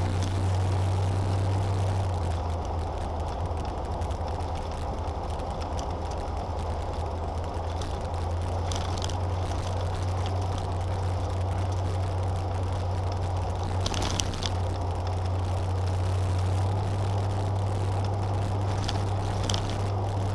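Car engine and tyre noise heard inside the cabin while driving at a steady speed: a steady low drone, with a brief knock about two-thirds of the way through.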